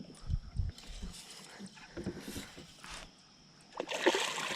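Knocks and bumps on a plastic kayak during a fish fight, with a short rush of noise near the end.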